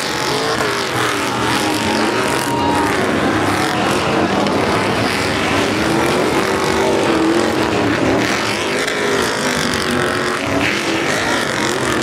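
Stadium Super Trucks' V8 engines racing past, several at once, their pitch rising and falling as the trucks rev up and back off.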